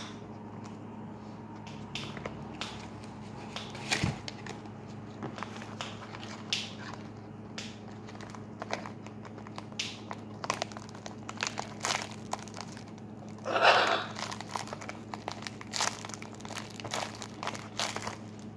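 Clear tape and plastic wrapping on a homemade squishy crinkling and crackling as it is pressed and handled, in many short crackles with one longer, louder crackle about three-quarters of the way through. A steady low hum runs underneath.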